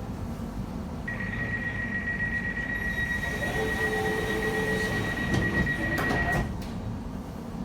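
Elizabeth line Class 345 train running through a tunnel, a steady rumble heard from on board. A thin, high steady squeal, typical of wheels on a curve, comes in about a second in and stops about a second before the end.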